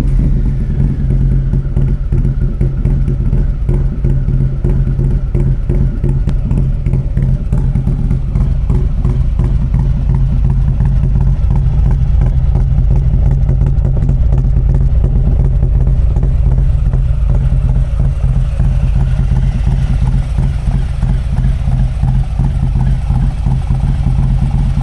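Harley-Davidson Street Glide ST's V-twin running through a custom C3 Vtwin 2-1 exhaust with a titanium can, a loud, steady exhaust note at fairly even engine speed.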